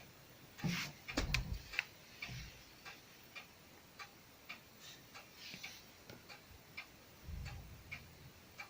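Steady clock ticking, a little under two ticks a second. A few knocks come about a second in, and a soft low snore from the sleeping cat comes near the end.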